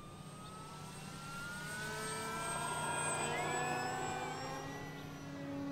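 Electric brushless motor and propeller of an FMS PA-18 Super Cub 1700mm RC plane in flight, running on 4S power: a steady whining buzz that swells to its loudest about halfway through as the plane passes, then drops in pitch near the end.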